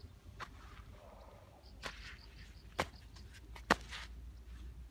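An insect chirping in short, quick, high pulses, about five a second, on and off. A few sharp clicks or snaps stand out over a low rumble, the loudest near the middle.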